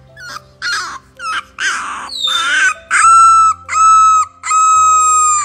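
Young French bulldog puppy crying: a string of short squeaky whines, then three long, loud, high-pitched cries. This is fussing that the owner reads as wanting to suck her finger.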